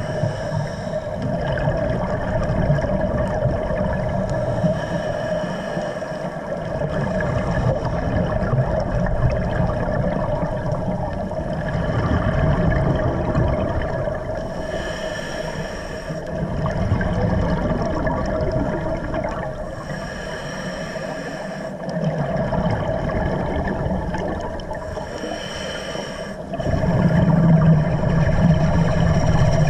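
Underwater sound of a scuba diver breathing through a regulator, with a bubbly exhalation every few seconds over a steady hum.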